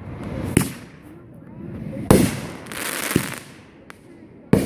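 Fireworks going off: four sharp bangs a second or so apart, the loudest about two seconds in, followed by about a second of crackling.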